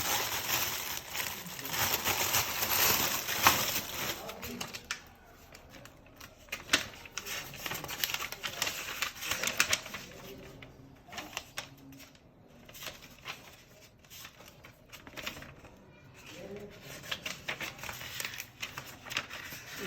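Irregular clicks and rustling handling noise, with a hiss in the first few seconds.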